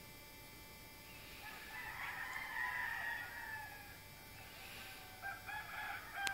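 A rooster crowing: one long crow about two seconds in, then shorter broken calls near the end.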